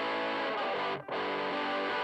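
Electric guitar (Michael Kelly Patriot Custom) played through a Joyo crunch distortion pedal into a 5e3 tweed Deluxe-style tube amp, sustained distorted chords with a short break about a second in as a new chord is struck.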